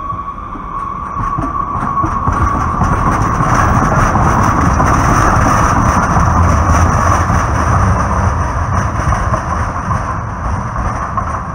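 Two-car Muni Breda light rail train passing close over street-running track: a low rumble of wheels on rails, with a higher steady hiss above it, that builds from about a second in, is loudest in the middle, and eases off near the end.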